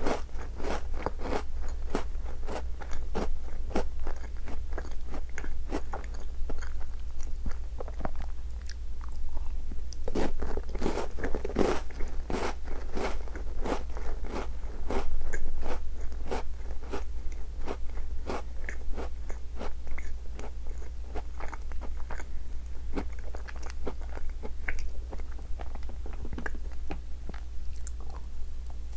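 Close-up chewing of Tim Tam chocolate-coated biscuits: a steady run of crunches and small mouth clicks. Another biscuit is bitten near the end.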